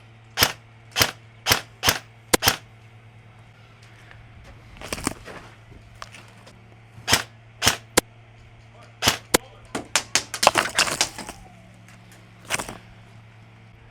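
Airsoft guns firing semi-auto shots: sharp pops at irregular spacing, with a quick string of shots about ten seconds in.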